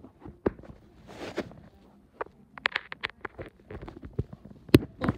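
Irregular light knocks, taps and rustles from a handheld camera being handled and carried while someone moves about, with a sharper knock near the end.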